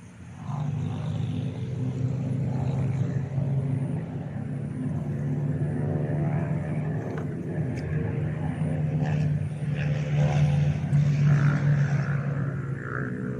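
A motor engine running with a steady drone. It comes in about half a second in and grows a little louder near the end.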